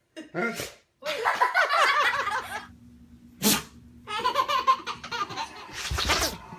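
A pet sneezing in short sharp bursts, one about three and a half seconds in and another near the end, with people laughing between them.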